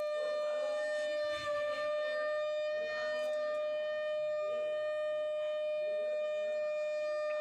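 Conch shell (shankha) blown in one long, steady note, as at a puja.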